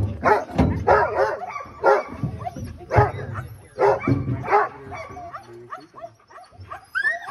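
A team of harnessed sled dogs barking over and over, loudest in the first few seconds, then high yips and whines near the end.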